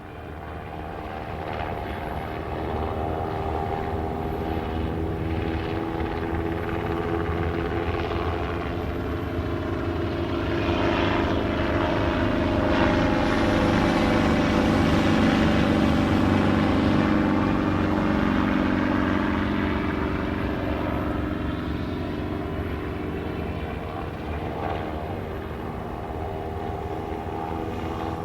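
Police helicopter flying over: the rotor and engine sound swells as it approaches, is loudest about halfway through, then eases off a little as it passes.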